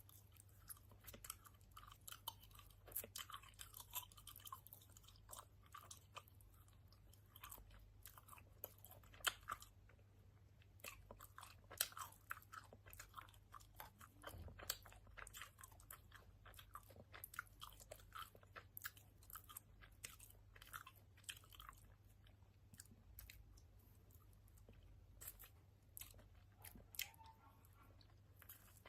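Open-mouthed, lip-smacking chewing of a strawberry-orange filled candy: a fast, irregular run of faint wet clicks, smacks and crunches, over a faint steady low hum.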